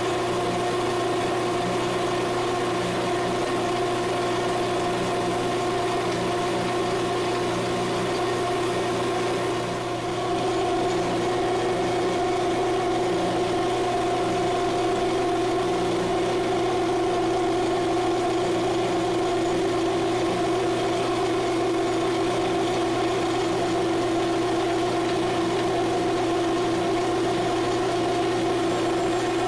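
Small bench metal lathe running at steady speed, its motor and drive giving a steady hum and whine, while a small twist drill in the tailstock chuck is fed slowly into the spinning workpiece. The sound dips briefly about ten seconds in.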